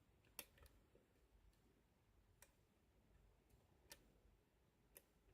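Faint, scattered clicks of a lock-pick hook working over the pin stacks inside a Lockwood padlock, about five or six ticks a second or so apart, as the pins are counted.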